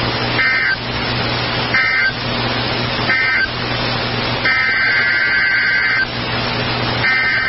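NOAA Weather Radio Emergency Alert System data tones over steady radio hiss with a low hum. Three short bursts of warbling two-pitch data about a second and a half apart, the end-of-message code closing the tornado warning, then two longer bursts of about a second and a half each, the header of the next alert.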